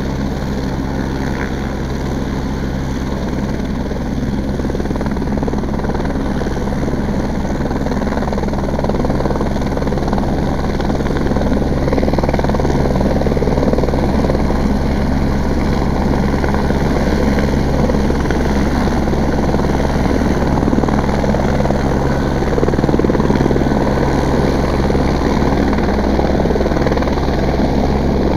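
Helicopter running on the ground with its rotor turning: a steady drone that grows a little louder about ten seconds in. It may be a routine maintenance run-up rather than a take-off.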